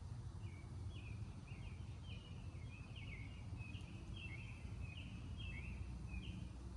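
A songbird singing a quick run of short, high, slurred notes, over a steady low background rumble.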